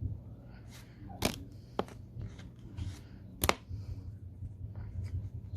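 Pokémon trading cards being handled: soft rustling with a few sharp snaps, the loudest about a second in and again about three and a half seconds in.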